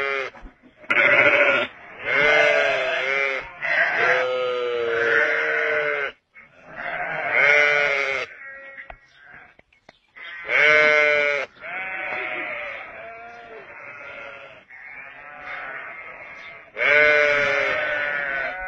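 Sheep bleating over and over in long, loud, wavering calls, about nine of them with short breaks between.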